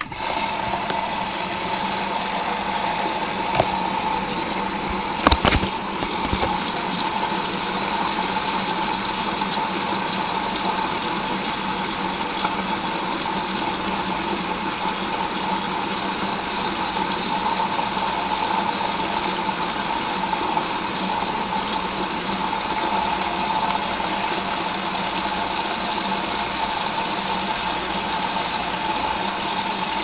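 Whirlpool front-loading washing machine starting a rinse cycle: water rushes steadily into the drum through the inlet valve with a steady hum, starting suddenly. Two short knocks come a few seconds in.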